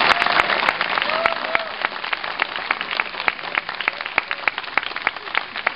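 Audience applauding in a theatre, a full round of clapping that gradually thins out to scattered individual claps.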